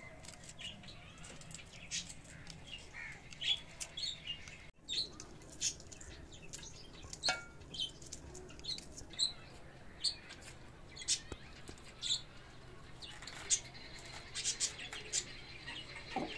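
Small birds chirping: many short, high chirps scattered throughout, over a faint, steady low hum.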